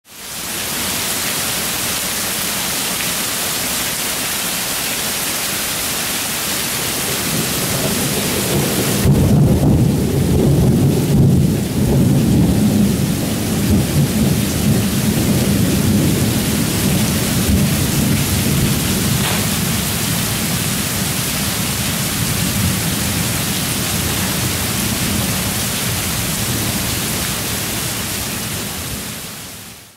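Heavy downpour: a sudden shower of rain hissing steadily on paving and trees. About eight seconds in a low rumble of thunder swells, is loudest for a few seconds, and then fades slowly under the rain.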